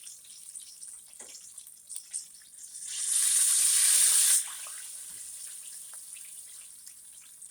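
Chicken drumsticks frying in hot oil, a steady sizzle with small crackles. About three seconds in a much louder rushing hiss swells up, holds for about a second and a half, then cuts off suddenly.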